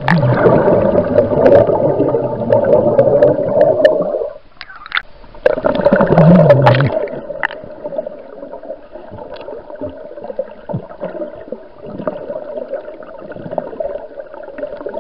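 A swimmer exhaling underwater, heard through an underwater camera: two long bursts of bubbling gurgle, the first about four seconds, the second shorter after a brief pause, then a quieter fizz of small bubbles and water clicks.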